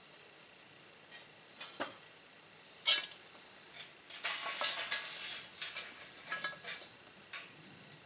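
Hot charcoal briquettes set onto the lid of a cast-iron Dutch oven with metal tongs. A sharp clank comes about three seconds in, then a stretch of coals rattling and clinking onto the metal lid, then scattered clicks of the tongs and coals.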